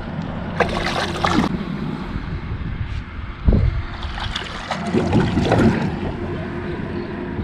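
Water splashing as a hooked fish is pulled through the shallows at the bank, with wind buffeting the microphone and a heavy thump about three and a half seconds in.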